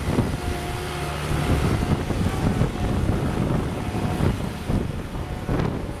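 Bobcat S185 skid-steer loader's diesel engine running steadily as the machine drives and turns on gravel, with wind buffeting the microphone.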